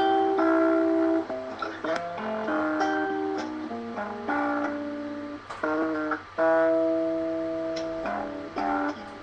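Acoustic guitar being strummed and picked, chords ringing out and changing every second or two.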